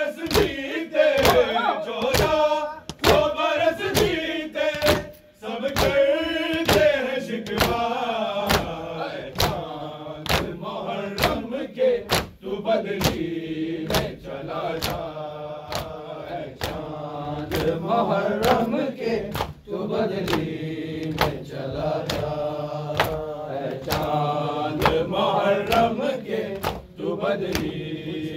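Group of men chanting a noha (Muharram lament) in unison, with steady hand strikes on the chest (matam) keeping the beat at about three strikes every two seconds.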